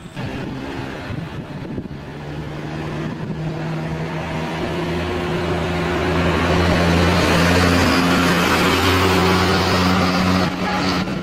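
A van passing close by on the road, its engine hum and tyre noise growing steadily louder over several seconds, then dropping away shortly before the end.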